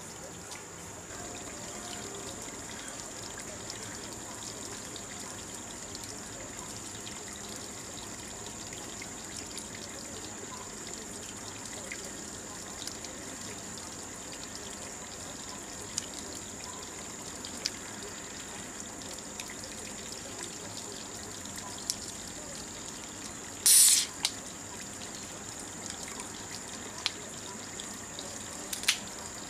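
A steady, even outdoor background rush like trickling water, with a constant high-pitched whine over it. A few faint clicks come through, and a brief loud high-pitched burst sounds near the end.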